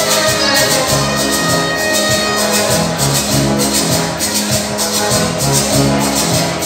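Live dance band playing Latin dance music through PA speakers, with a steady bass line and a shaker keeping a fast, even beat.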